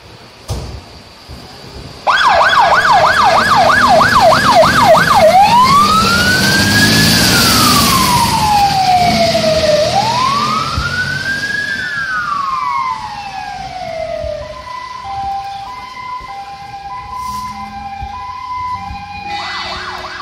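Siren of a Mercedes GBA 2,5/28 fire engine, switching on loud about two seconds in. It starts as a fast yelp of about four sweeps a second, then two slow rising-and-falling wails, then a two-tone hi-lo from about fourteen seconds, and goes back to the fast yelp just before the end.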